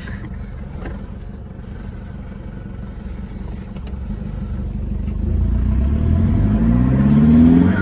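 Holden Colorado ute's engine under way: a low steady rumble that, from about halfway through, grows louder as the engine accelerates, its note rising in pitch over the last second or two.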